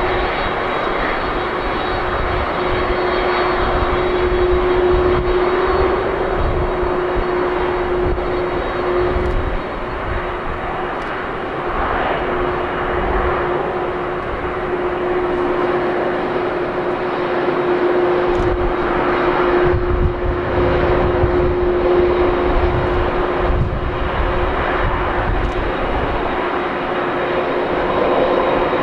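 Boeing 767-300ER's twin turbofan engines running at low taxi power as the jet rolls and turns: a steady whine over a broad jet hiss and an uneven low rumble.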